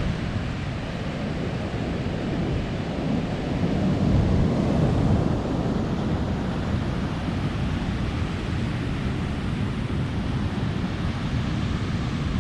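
Surf washing on the beach with wind buffeting the microphone, swelling louder for a couple of seconds about four seconds in.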